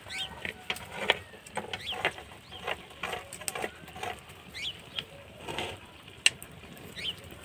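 Fire of dry stalks burning in the firebox of a clay village oven, crackling with irregular sharp pops, one louder pop about six seconds in. Short bird chirps come through behind it.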